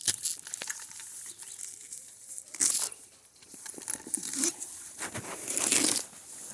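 Rustling and crinkling, like something being crumpled or torn, coming in bursts, with louder ones about two and a half seconds in and near the end.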